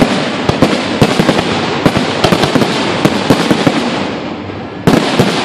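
Aerial firework shells bursting in rapid succession: a dense run of bangs over continuous crackling, easing off about four seconds in before a fresh loud bang just before the end.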